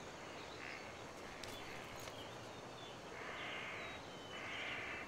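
Quiet outdoor ambience under trees, a steady low hiss with faint bird chirps. Two brief hissing sounds come in the second half, about three and four and a half seconds in.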